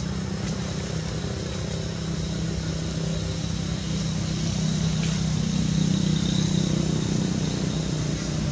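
Steady engine drone with a low hum, swelling louder about halfway through and easing slightly near the end.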